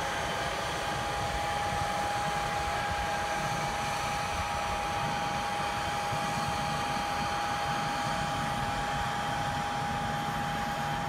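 Robotti field robot running as it drives with its maize planter: a steady mechanical hum and rush with a constant high whine over it.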